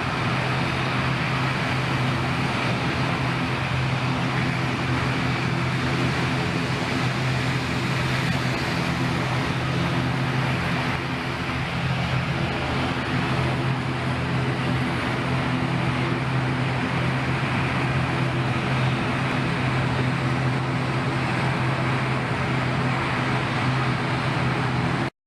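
Steady engine drone with a constant low hum and no change in pitch or level.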